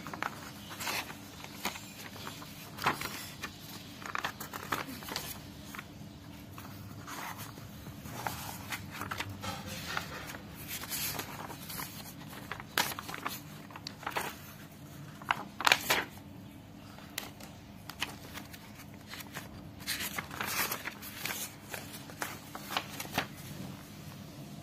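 Paper book pages rustling as they are turned by hand, in short, irregular rustles, the loudest about two thirds of the way through.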